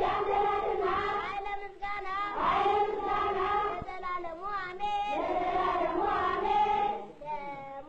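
A group of schoolchildren singing a prayer together, in long held notes that slide from pitch to pitch.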